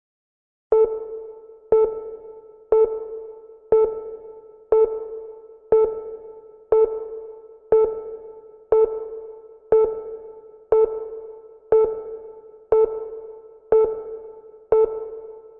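Electronic timer beeping once a second, each a short pitched tone that fades quickly, about fifteen in a row after a brief silence, counting off the seconds of an exercise hold.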